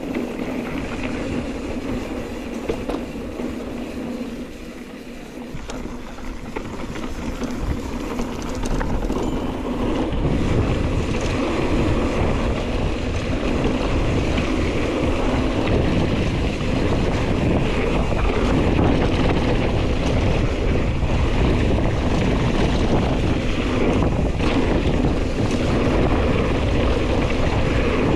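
Wind rushing over the microphone, with mountain bike tyres rolling over a dusty dirt trail. It grows louder about ten seconds in and stays up.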